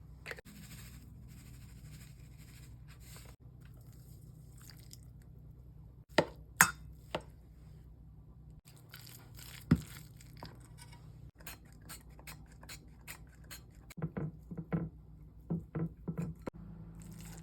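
Kitchen food-preparation noises: a few sharp knocks about six seconds in and again near ten seconds, then a run of quick clicks and scrapes, with duller knocks near the end.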